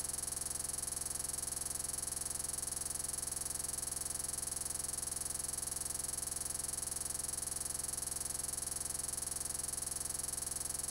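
Steady, unchanging electronic buzz and hiss with a high whine on top, the kind of stuck noise left by a corrupted video recording.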